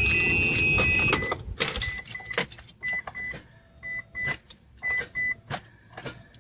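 Mitsubishi Lancer Evolution IX starter trying to crank the engine: about a second of loud cranking, then a run of separate clicks, with short high beeps in between. The car does not start, a sign of a battery too weak to turn the engine over.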